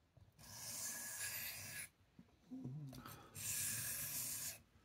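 Knife blade drawn slowly across a wet Shapton Kuromaku 1000-grit ceramic whetstone: two long, smooth, hissing sharpening strokes, each lasting a second or more, with a short pause between them.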